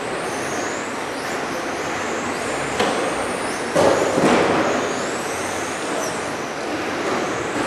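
Several 1:10 electric RC touring cars racing on carpet: high-pitched motor whines gliding up and down as they accelerate and slow, over a steady rush of noise, with a few sharp knocks about 3 and 4 seconds in.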